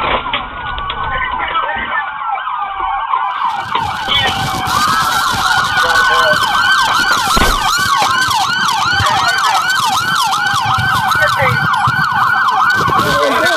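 Several police car sirens sounding at once. A fast yelp rises and falls about three to four times a second, overlapping slower wailing sweeps.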